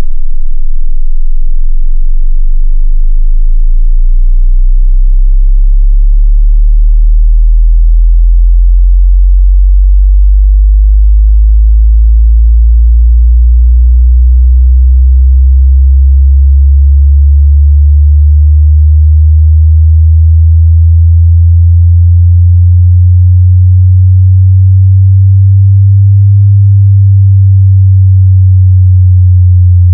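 Deep bass sine-wave test tone from a 5–100 Hz rattle-test sweep, played loud. It climbs slowly in pitch and dips briefly about every five seconds.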